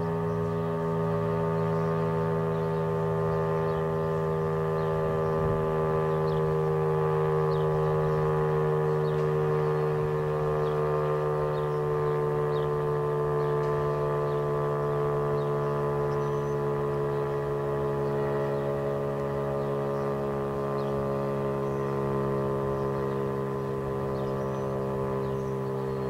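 Federal Signal STH-10 outdoor warning siren sounding a steady, chord-like wail during a test, its pitch sagging slightly as it goes on.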